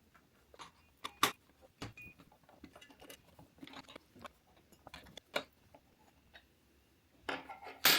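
Irregular small clicks and knocks of a bolt being tightened into a 3D-printed plastic connector seated in a workbench's holes, with a louder knock near the end.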